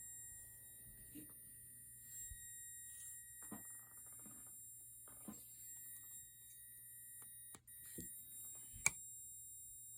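Faint steady high-pitched electronic whine over a low hum, with a few soft clicks, the sharpest one near the end.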